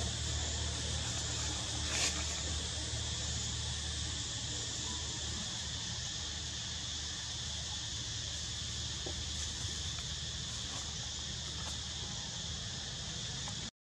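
Steady high drone of forest insects, with a low rumble under it that eases after the first few seconds and one sharp click about two seconds in. The sound cuts out for a moment near the end.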